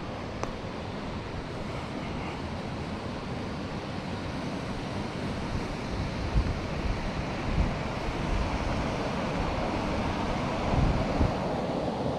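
Steady rushing of a flowing river, growing slightly louder, with wind buffeting the microphone in low thumps during the second half.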